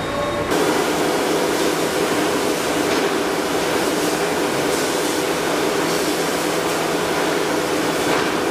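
Woodworking CNC router running: a loud, steady machine noise with a hum of a few steady low tones, starting abruptly about half a second in.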